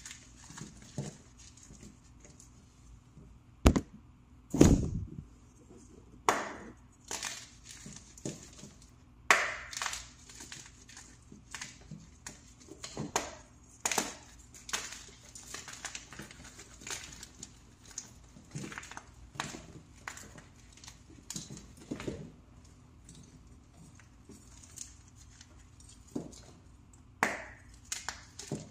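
Hands crushing freshly made plain pressed powder blocks: irregular crisp crunches and crumbling, with two heavier thuds about four and five seconds in.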